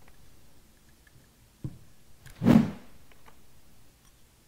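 Workshop handling noise as a pick tool works out a fan clutch's seals on a workbench: a sharp click a little over a second and a half in, then a louder short knock about a second later, followed by a few faint ticks.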